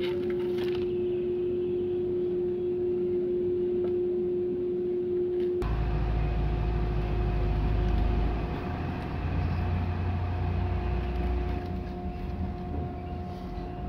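Steady mechanical hum with one held tone. About five and a half seconds in it switches abruptly to a deeper rumble with a higher held tone, like a running engine or motor.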